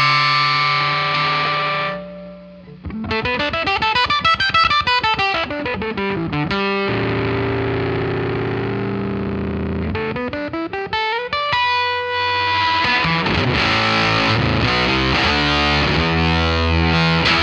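Electric guitar played through a Neural Amp Modeler capture of a Behringer SF300 octave fuzz pedal into a Fender Deluxe Reverb amp model, a thick fuzz tone with an upper octave. A held chord cuts out briefly about two seconds in, then come quick runs of notes up and down the neck, a held note, another run, and sustained fuzzed chords to finish.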